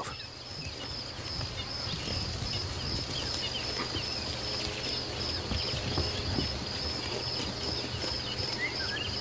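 Bush ambience: an insect calls in a steady high pulsing rhythm, with scattered short bird chirps and a low rumble underneath.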